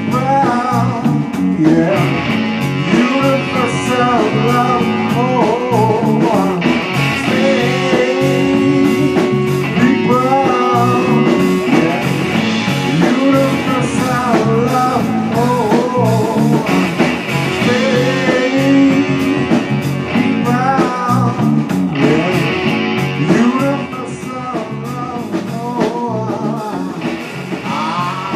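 Blues-rock band music: electric guitar leads with bending melodic lines over bass and a steady drum beat, with some singing.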